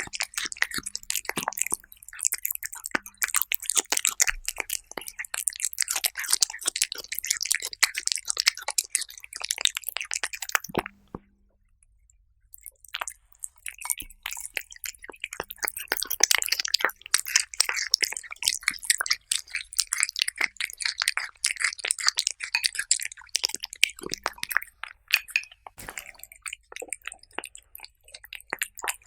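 Cats eating: a rapid run of small wet chewing and lapping clicks and smacks, which stops for about two seconds midway and then picks up again.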